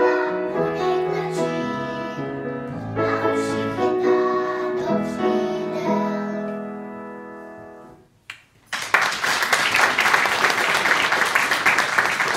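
A group of young girls singing with piano accompaniment; the last chord rings and fades out about eight seconds in. After a brief pause the audience breaks into applause.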